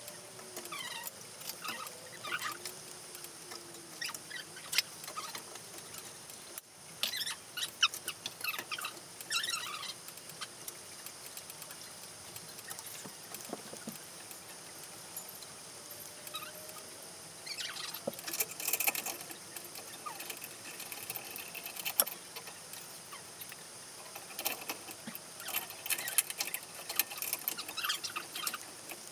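Hunter Stratford 2 ceiling fan's blades being unscrewed and handled so they can be turned to their other side: scattered clicks, squeaks and light scraping, coming in clusters.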